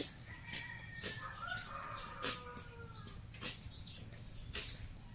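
Grass and brush being cut by hand with a blade, a sharp swishing stroke about once a second. A chicken clucks in the background during the first half.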